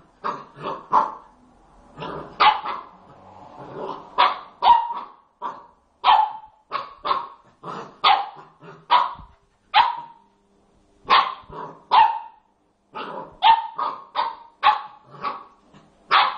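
A puppy barking at a coconut: short, sharp barks two or three a second, in volleys broken by brief pauses.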